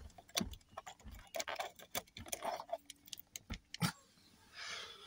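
Scattered light clicks, taps and rustling as a handheld OBD scan tool and its cable are pulled out from a stowage spot in a car and handled.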